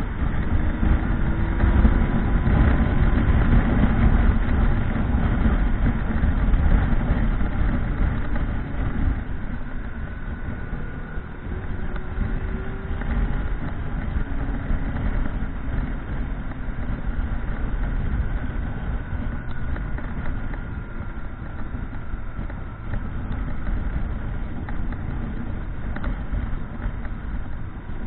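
Motorcycle engine running under way with heavy wind rumble, its pitch rising slowly a few times as the bike accelerates.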